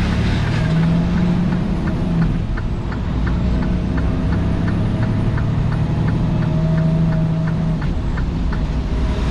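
Semi-truck cab while driving: the diesel engine and road drone run steadily, with a regular light clicking about three times a second from about a second in until near the end.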